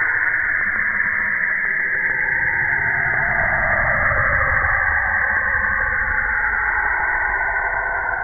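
Saturn's radio emissions (Saturn kilometric radiation) recorded by the Cassini spacecraft's Radio and Plasma Wave Science instrument and shifted down into hearing range: a dense, rushing noise with a band of tone that slides down through the middle and then rises again near the end.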